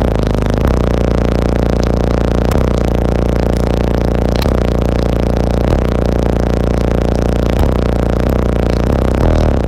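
A truck's car audio system, six Sundown 18-inch subwoofers, plays a rap track at extreme volume. Deep bass notes shift every second or two, heavily distorted.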